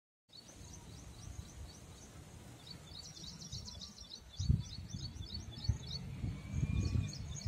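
Birds chirping in quick, repeated trilled notes over a low, gusty rumble, with a few louder thumps about halfway through and near the end.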